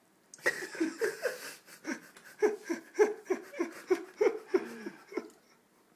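A person laughing in a long run of short, breathy bursts that fall in pitch, about three a second, stopping about five seconds in.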